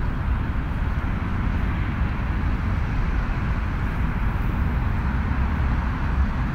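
Steady outdoor night ambience on a camera's built-in microphone: a low rumble with a hiss above it and no distinct events.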